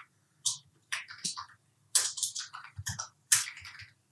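Typing on a computer keyboard: about a dozen irregular keystrokes as a short name is entered.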